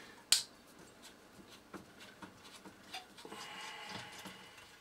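A screwdriver and small parts being handled inside a plastic computer case while a small grounding lead is freed: one sharp click about a third of a second in, then faint light ticks and a soft scraping in the second half.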